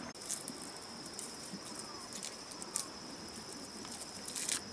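Steady high-pitched drone of forest insects, with a few short crackles and rustles of leaves and twigs at intervals.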